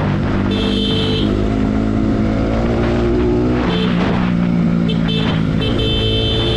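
Bajaj Pulsar NS200's single-cylinder engine running hard under acceleration on a moving ride, its pitch climbing, dropping sharply about three and a half seconds in, then climbing again. A high beeping tone comes and goes several times over the engine.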